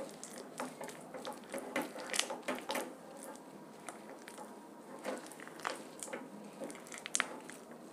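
Plastic spatula stirring roasted chickpeas through thick melted jaggery in a nonstick kadai: soft, irregular scrapes with light clicks as the chickpeas are turned over.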